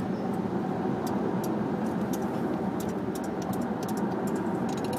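Car cabin noise while driving: a steady rumble of road and engine, with a few light clicks scattered through it.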